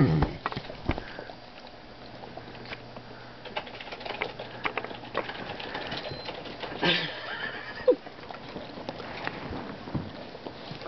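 A big dog nosing at a kitten on a bed: rustling of bedding and soft scattered clicks and scratches, with a short, loud sound falling in pitch at the very start and a short breathy burst, like a sniff or snort, about seven seconds in.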